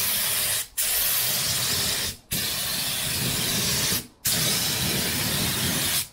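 Air-fed top-loader paint spray gun with a 1.8 mm nozzle spraying: a steady loud hiss of air and paint mist, let off for a split second three times between passes, laying a light first coat on a steel wheel rim.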